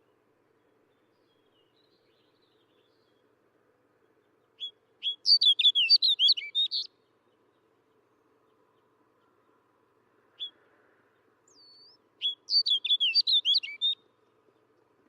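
Snow bunting singing: two short songs of quick, warbling high notes, each about two seconds long, with a single call note between them.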